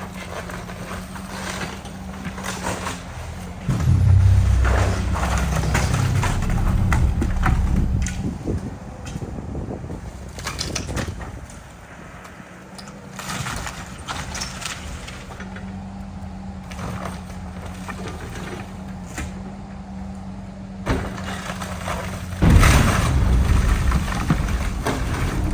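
A heavy demolition machine's engine running steadily while it tears apart a wood-frame house, with repeated cracking and crashing of splintering timber. Loud low rumbling surges about four seconds in and again near the end.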